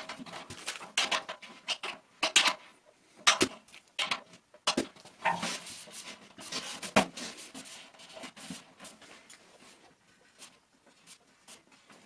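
Metal trash can and its handle hardware being handled on a workbench: scattered clicks, taps and knocks of metal, with a few louder knocks about three, five and seven seconds in, growing fainter towards the end.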